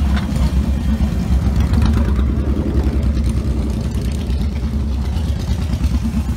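Custom cruiser motorcycle engines running close by: a steady, deep rumble with fast firing pulses.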